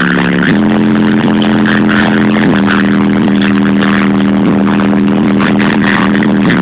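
Loud electronic music with held low synth chords that change every second or so, played through a tuned car's audio system.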